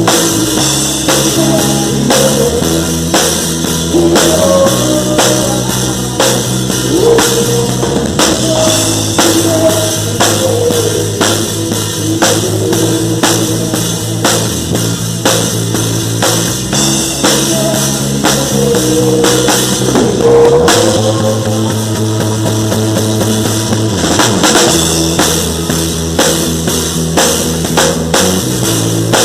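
Live band playing a rock-style song: a drum kit keeps a steady beat under bass and guitar.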